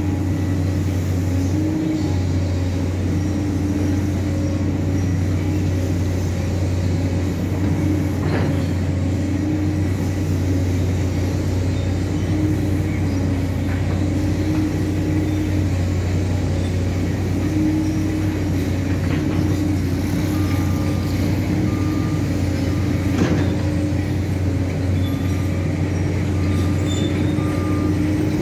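Diesel engine of a JCB tracked excavator running steadily under working load while its hydraulic boom and bucket move, the engine note rising and dipping a little. Two sharp knocks stand out, about a third of the way in and again near the end.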